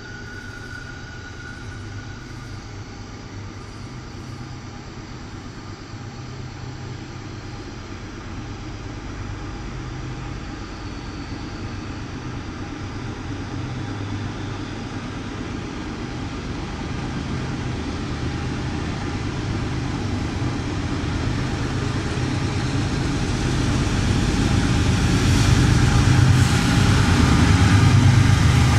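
Diesel locomotives of an approaching train: a low engine rumble that grows steadily louder as the train draws near, loudest near the end.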